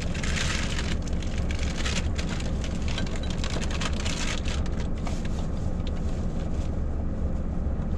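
Crinkling and rustling of a cup noodle's plastic packaging being opened, densest in the first few seconds and thinning out after about four seconds, over the steady low rumble of the truck's idling engine.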